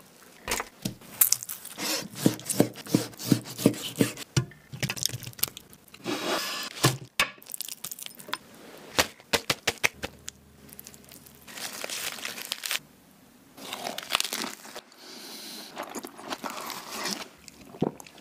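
Crisp food sounds in quick succession: sharp cracks and crunches, with fresh lettuce leaves tearing and crinkling. About two seconds in comes a run of evenly spaced cracks, roughly four a second, and a few short stretches of steady hiss come later.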